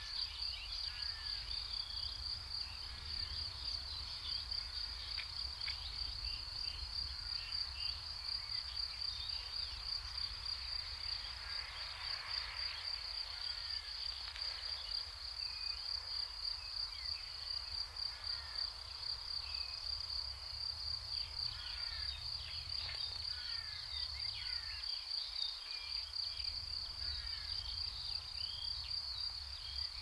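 Outdoor ambience at the nest microphone: a continuous high-pitched pulsing buzz, typical of insects such as crickets, with short bird chirps scattered throughout and a low wind rumble underneath.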